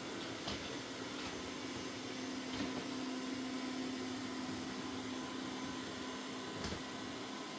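Mova Z60 robot vacuum running steadily, a constant hum under its motor noise, with a few faint clicks as it works.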